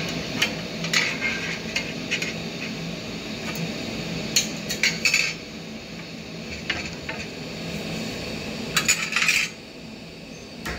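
Steel tongs clinking and scraping against a steel plate and a red-hot steel rivet as the rivet is set in its hole, a scatter of sharp metallic clinks with two busier clusters, over a steady low hum.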